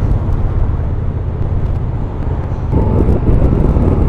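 Motorcycle engine and wind noise while riding at road speed, a steady low rumble that grows louder about three seconds in.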